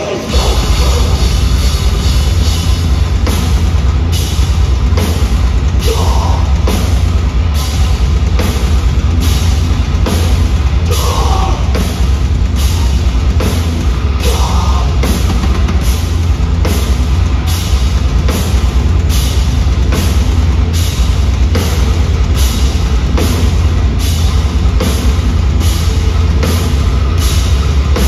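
A heavy hardcore band playing live at full volume, heard from the stage right behind the drum kit. The drums and cymbals lead over heavy bass, with cymbal strikes coming on an even beat somewhat under two a second.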